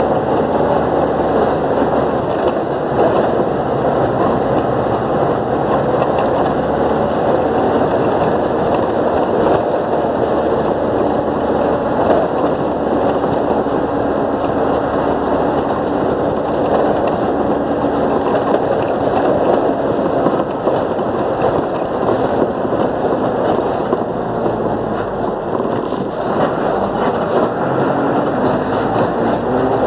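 City bus under way, heard from inside: its engine runs with a continuous din of road noise and rattling body, the engine pitch shifting a few times as it changes speed.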